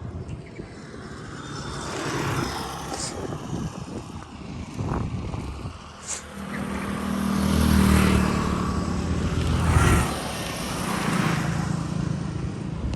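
Bajaj Pulsar RS 200 single-cylinder engine running with its air filter removed, revved several times so the sound swells and falls, loudest about 8 and 10 seconds in.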